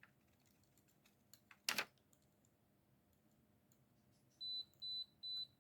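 A single sharp tap about two seconds in, then near the end a multimeter starts beeping: short, high, evenly spaced beeps about two a second.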